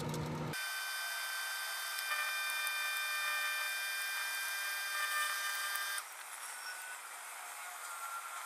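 A microwave oven runs with a loaded Glock 19 burning inside, its hum and the crackle of the fire played back at ten times speed, so the hum becomes a steady high whine over a hiss. The whine cuts off abruptly about six seconds in, leaving a fainter hiss.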